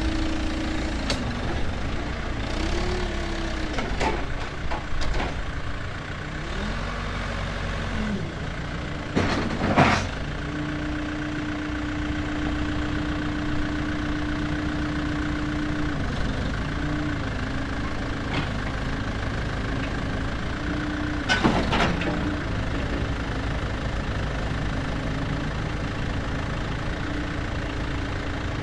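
Excavator's diesel engine running under work, its pitch rising and falling as the load changes, with a few sharp loud knocks, the loudest about ten seconds in and again about twenty-one seconds in.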